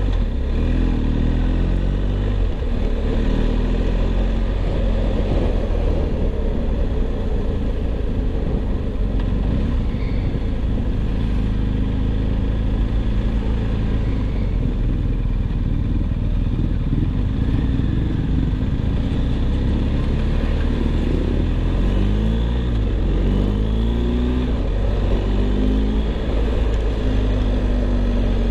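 BMW R 1250 GS Adventure's boxer-twin engine running on the road, its pitch rising and falling several times with the throttle.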